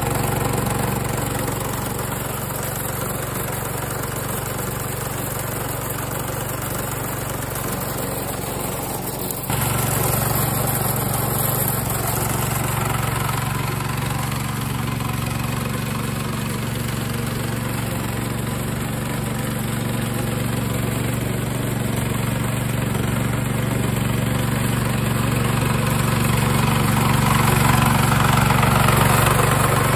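Small petrol engine of a DIY remote-controlled lawn mower running steadily, turning the mower's alternator. About a third of the way in it suddenly gets louder, and it grows louder again near the end.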